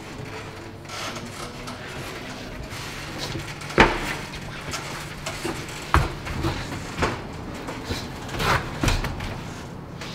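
Irregular knocks and thumps from a dancer's feet and hands striking a metal walkway and stair handrails, with a sharp loud knock about four seconds in, another about six seconds in, and smaller knocks clustering near the end, over a steady low background hum.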